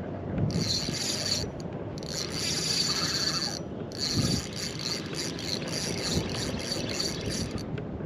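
Spinning reel buzzing in three bursts, the last one breaking into rapid clicks, as a hooked fish pulls line against the drag during the fight.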